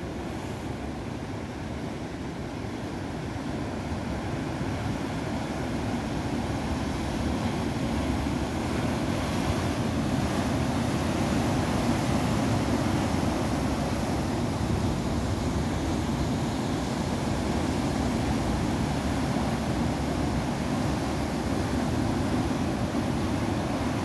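Ocean surf breaking and churning over rocks: a steady rushing wash of water that grows louder over the first several seconds and then holds.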